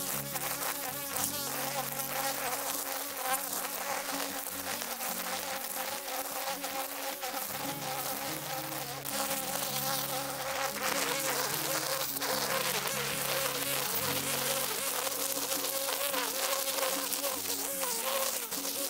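Husqvarna 115iL battery string trimmer with a nylon cord head, its motor giving a steady, slightly wavering whine as it cuts grass.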